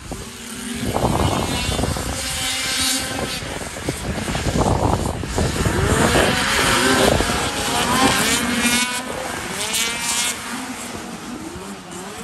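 Several vintage two-stroke snowmobiles racing, their engines revving hard, with pitch sweeping up and down as they pass. The sound fades near the end.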